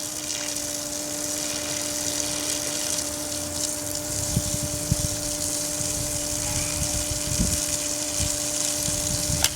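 Water from the garden hose rushing through a Greenworks 1700 psi electric pressure washer and out of its trigger gun, bleeding air from the line: a steady gushing hiss over a steady hum, with a few low thuds in the second half.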